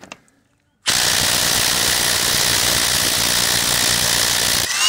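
Ridgid Octane 1/4-inch cordless impact driver hammering on a car lug nut torqued to about 100 ft-lb. It starts about a second in, runs steadily for nearly four seconds, and stops once the nut breaks loose.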